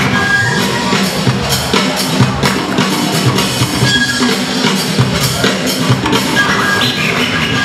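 Loud breakbeat-style dance music with a steady, heavy drum beat, played over a hall's sound system.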